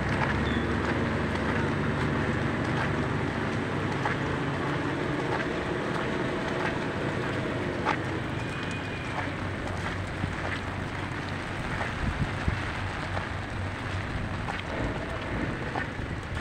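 Heavy rain falling steadily on wet concrete, with scattered sharp drop ticks over a low rumble.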